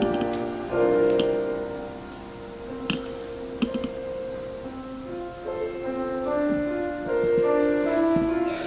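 Piano accompaniment playing a slow passage of held notes and chords, with a couple of faint clicks about three seconds in.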